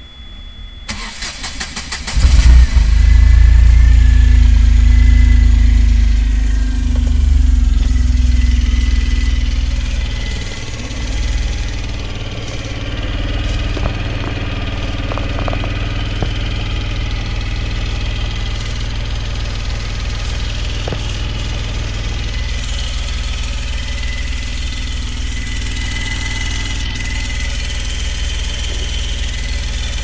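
Ashok Leyland Dost CNG light truck engine cranked on the starter, catching about two seconds in. It runs loud at a fast idle for several seconds, then settles to a steady idle with a thin high whine over it.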